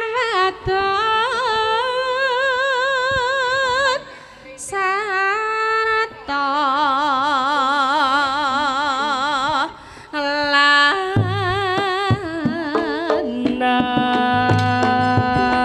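Solo voice singing a slow Javanese song in long, wavering held notes, phrase by phrase with short breaths between. About eleven seconds in, drum strokes and low accompanying instruments come in under the voice.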